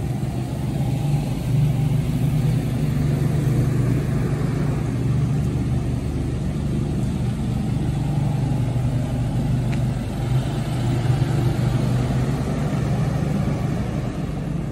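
Box truck engine running steadily, a continuous low drone.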